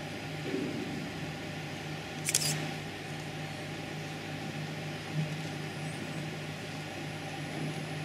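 Faint footsteps of a small group walking on a sports-hall floor over a steady low hum. A short hiss comes about two seconds in.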